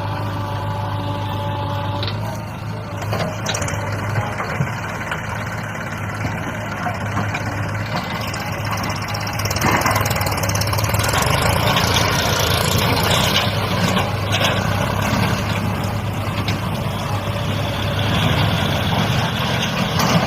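Heavy diesel engine running steadily, getting louder about halfway through as it works harder, with a couple of brief knocks.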